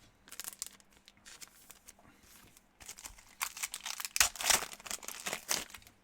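Foil wrapper of a trading-card pack crinkling and tearing as the pack is opened. Light rustles at first, then a louder stretch of crinkling in the second half.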